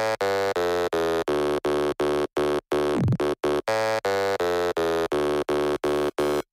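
Electronic music intro: a buzzy synthesizer chord chopped into short, even pulses nearly three times a second, with a falling pitch sweep about halfway through.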